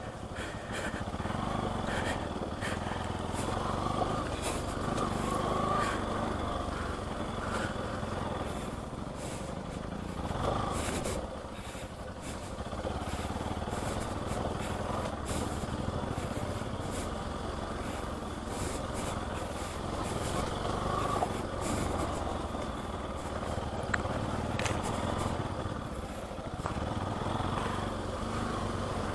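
Motorcycle engine running steadily at low speed while being ridden over a slushy off-road track, with scattered sharp knocks and clicks.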